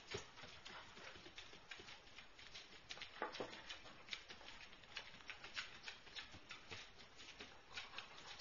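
Puppies' claws clicking and pattering on a hard floor as they walk about: faint, irregular small ticks.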